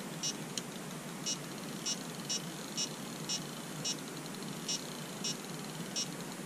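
Carp fishing bite alarm sounding short high beeps at irregular intervals, about eleven in six seconds, the sign of a fish taking line on a run. A steady low hiss lies under the beeps.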